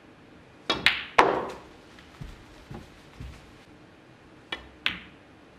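Snooker balls clicking during a break: three sharp clicks in quick succession about a second in, the last and loudest with a short ringing tail, then two more clicks close together near the end, as the cue strikes the cue ball and the balls collide.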